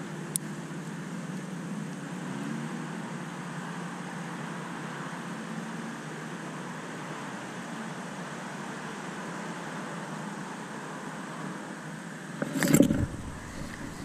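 Steady rush of passing road traffic. Near the end comes a short loud burst of rod and camera handling noise as a fish takes the Ned rig and the hook is set.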